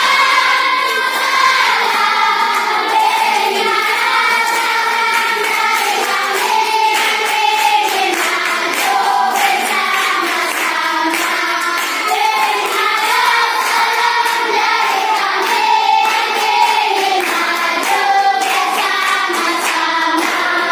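A class of children singing a song together, with hands clapping along.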